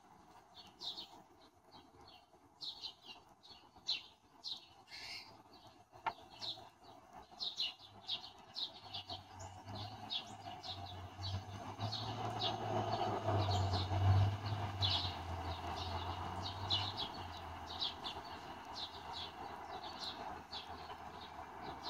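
A flock of house sparrows chirping, short sharp cheeps repeated several times a second. A low steady hum swells in the middle and fades.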